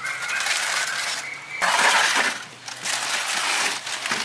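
Aluminium foil and banana leaf crinkling and rustling as hands pull the wrapping open, in irregular surges that are loudest about two seconds in.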